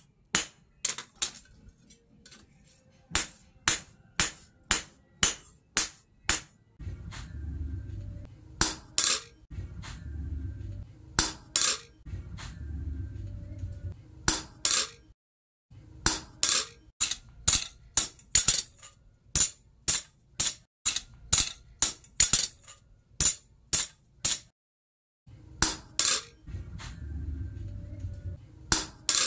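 Hammer blows on a handled hot-cut chisel cutting red-hot steel plough-disc plate on an anvil: sharp metallic clinks, about two a second, in runs with short pauses.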